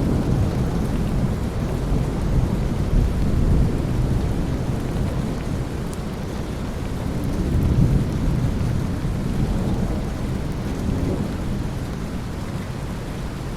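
Thunderstorm: steady rain with low rolling thunder rumbling underneath, swelling about two to three seconds in and again around eight seconds, then easing off toward the end.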